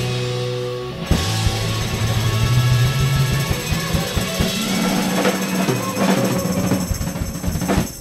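Live rock band playing loudly: electric guitar over a drum kit with dense, rapid drum hits, all stopping suddenly near the end as the song finishes.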